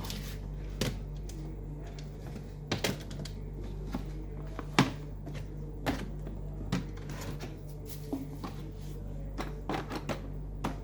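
Irregular knocks and clicks of toys and storage buckets being handled and put away, about a dozen over the stretch, over a steady low hum.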